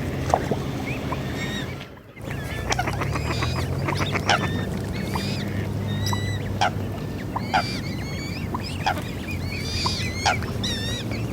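Swans and other waterfowl giving many short, repeated honking calls over a steady low hum. The sound drops out briefly about two seconds in.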